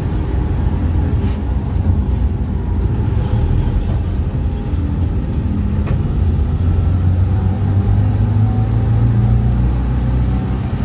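Air-cooled flat-four engine of a VW Type 2 single cab pickup running steadily under load while driving, with road noise. The engine note rises a little and grows stronger in the last few seconds. It is running smoothly after a fuel pump rebuild and tune-up.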